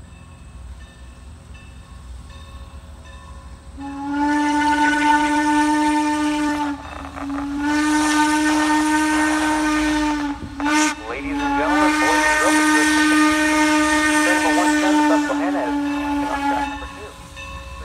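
Steam locomotive whistle blowing the grade-crossing signal: long, long, short, long. It starts about four seconds in and the last long blast is the longest, over a low rumble from the approaching engine.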